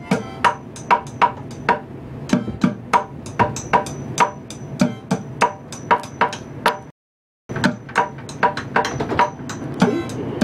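Bucket drumming: drumsticks beating a quick rhythm of sharp strikes on a plastic bucket. The sound cuts out briefly about seven seconds in.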